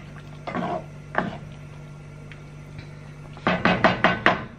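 Wooden spoon stirring a thick cream sauce in a nonstick frying pan, knocking against the pan twice, then a quick run of about five knocks near the end.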